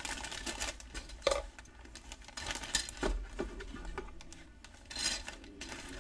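Plastic model-kit sprues being handled and pushed into clear plastic bags: the bags crinkle, with irregular light clicks and rattles of the hard plastic parts.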